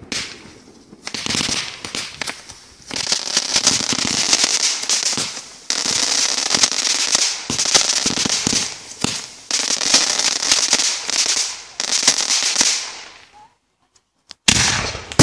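Consumer fireworks going off in a rapid, crackling stream of small sharp reports, in several runs of a second or two. The crackling stops briefly about a second before the end, then a loud burst starts again.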